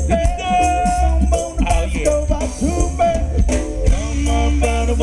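Live ska band playing through a PA: heavy electric bass under keyboard, with a man singing.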